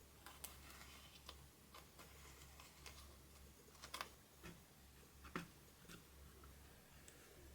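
Faint, scattered small clicks and scrapes of a hard tool scratching pressed eyeshadow in a palette, the loudest pair about four seconds in and another about five and a half seconds in, over a low steady hum.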